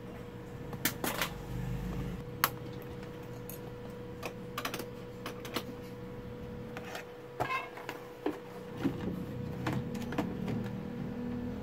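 Scattered light clicks and taps of a circuit board and tools being handled on a workbench, over a steady faint hum.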